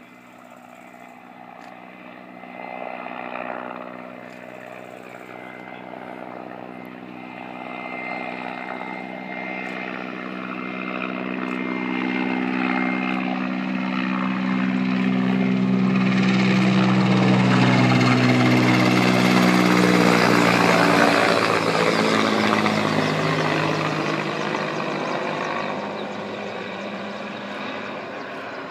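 Mi-8 twin-turbine transport helicopter climbing out after takeoff and flying overhead. The rotor and turbine sound builds to its loudest about two-thirds of the way through, then drops in pitch and fades as it passes.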